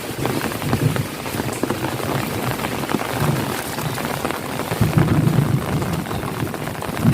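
Steady rain falling, a dense hiss of many small drop hits. A low rumble swells about five seconds in.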